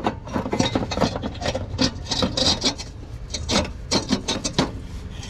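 A catalytic converter from a BMW 325i exhaust being worked loose and pulled down past its mount: irregular metal scraping and rubbing with short knocks, the pipe catching on the mount.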